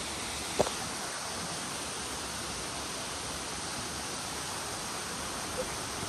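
Steady rushing of a waterfall running with little water, an even hiss of falling water. One brief sound cuts through about half a second in.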